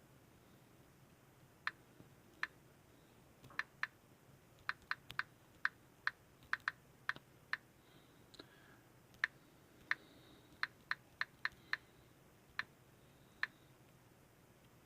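Clicking at a computer: about two dozen short, sharp clicks at an uneven pace, some in quick pairs, over a faint steady hum.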